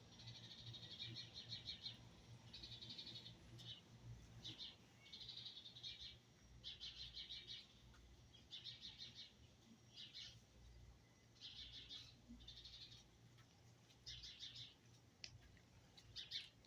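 Faint bird alarm calls raised at a cat: about a dozen short bursts of rapid, high chattering, each under a second long, coming every second or so.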